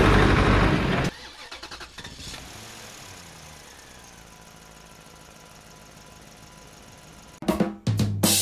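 Loud vehicle engine running, which cuts off suddenly about a second in, leaving a faint low engine hum with a slowly falling pitch. A few sharp knocks come near the end.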